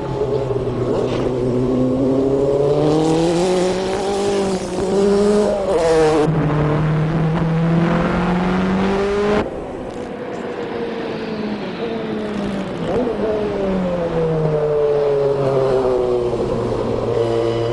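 Nissan R90CK's twin-turbo V8 race engine at full throttle, pitch climbing, dipping at a gear change about six seconds in and climbing again. About nine seconds in, the throttle comes off suddenly and the revs fall for several seconds before the engine pulls again near the end. The uploader says this engine was overboosting from a malfunctioning wastegate.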